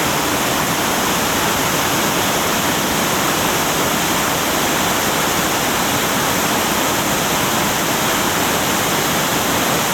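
Waterfall pouring down: a loud, steady rush of falling water.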